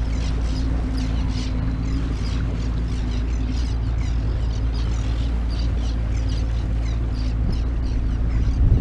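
Boat engine running steadily at low speed, a low hum, with short high chirps repeating over it.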